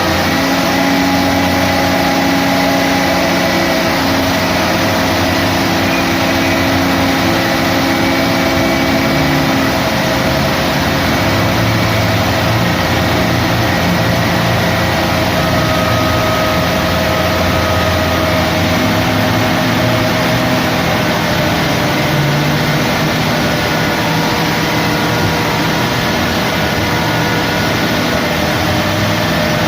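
Heavy diesel engines of a concrete mixer truck and a backhoe running steadily, with a steady whine over the engine note.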